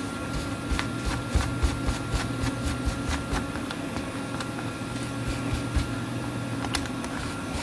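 Steady machine hum in the workroom, with light, irregular clicks and rubbing as small metal cuckoo clock hands are wiped with a paper towel and handled on a work mat.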